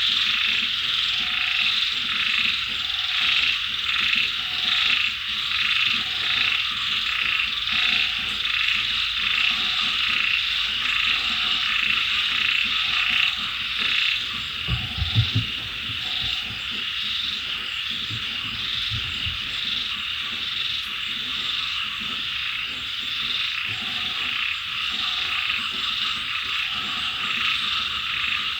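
Dense chorus of frogs croaking, with one short call repeating about once a second over the steady pulsing mass of calls. A few deep, low croaks come about halfway through.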